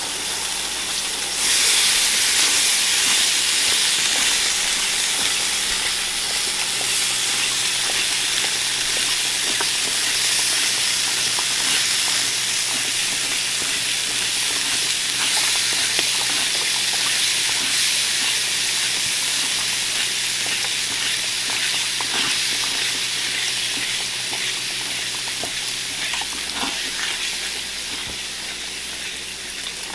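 Chicken broth poured from a carton into a hot skillet of browned flour gravy, sizzling steadily while a fork stirs it. The sizzle gets louder about a second and a half in and eases off a little toward the end.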